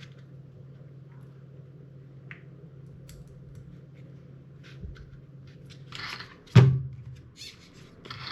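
Small clicks and handling of parts as a screw is fitted to an RC rally car, with a short rustle and then one sharp knock near the end.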